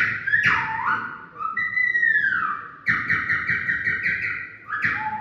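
A man imitating a parrot with his voice. Runs of quick, sharp chattering notes alternate with whistled swoops that rise and then fall away; a chattering run returns about three seconds in, and a rising whistle comes near the end.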